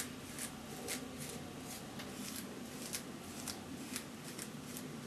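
Faint, short swishes about twice a second as a hairbrush is drawn again and again through a section of damp afro-textured hair coated with a hydration mask.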